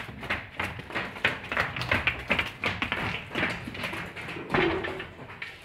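Cattle hooves knocking on a hard floor as young Girolando heifers walk in, in a quick irregular run of taps.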